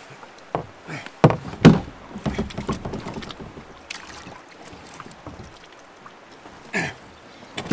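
Hollow knocks and thumps against a canoe hull as gear is handled aboard. Several loud knocks come in quick succession in the first half, and one more comes near the end.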